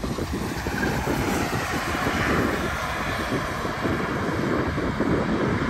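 A group of compact turbocharged cars, VW Jetta 250 TSI and VW Nivus 1.0 among them, launching together from a standing start and accelerating hard at full throttle.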